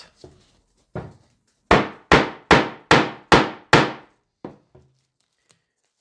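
A rubber-headed mallet strikes a hole punch six times in a steady series, about two and a half blows a second, after one lighter tap. This is punching a pad out of foam-backed Mylar sheet on a cutting board. A couple of faint taps follow.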